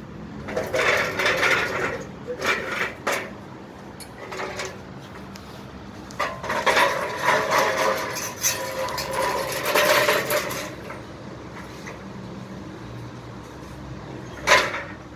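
Irregular metallic clattering and knocking from an aluminium stepladder and fittings being handled, with one sharp loud knock near the end.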